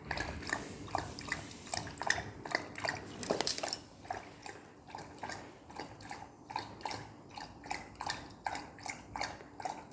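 A thirsty dog lapping water from a bowl, a quick even run of wet laps, about three a second.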